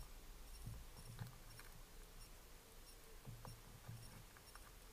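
Faint small clicks and soft thumps of a cat eating from a metal dish: chewing and lapping, in two short clusters about a second in and again around three to four seconds.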